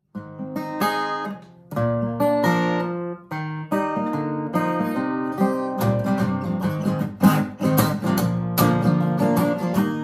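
Solo acoustic guitar playing an instrumental intro: separate picked notes and chords at first, then fuller, steady strumming from about six seconds in.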